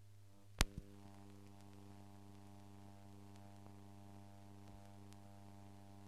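Steady electrical mains hum with a stack of overtones on the soundtrack of a silent film transfer, with a sharp click about half a second in, a smaller click just after, and a few faint ticks.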